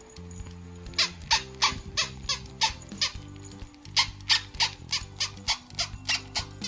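A baby's plush panda toy squeaking in quick, evenly spaced squeaks, about three a second, with a short pause midway, over background music.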